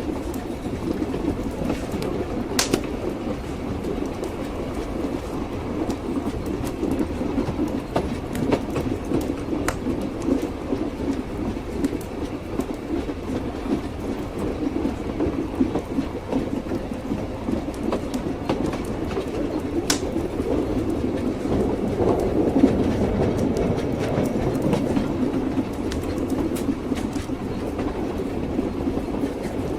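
Train running on rails: a steady rumble of the carriage with the clickety-clack of wheels over rail joints and a few sharp clicks.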